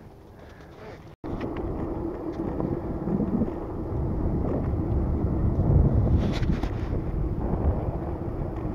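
Wind rushing over the microphone on a moving bicycle, a dense low rumble. About a second in the sound drops out for an instant and comes back much louder.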